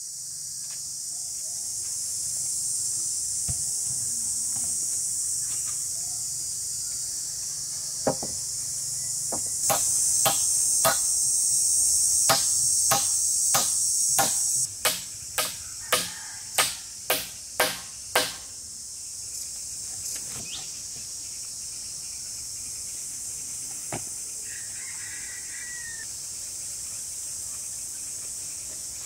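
A steady high-pitched insect chorus, with a run of sharp strikes on wood through the middle: irregular at first, then about two a second for a few seconds before stopping.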